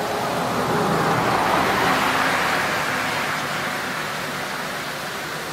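Steady rush of a waterfall, with a vehicle passing on the road alongside: its noise swells over the first two seconds and fades out again by about four seconds in.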